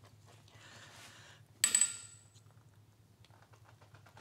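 A single sharp metallic clink with a brief high ringing about one and a half seconds in, the steel wrench and socket coming off a cylinder-head bolt, followed by a few light ticks, over a faint steady hum.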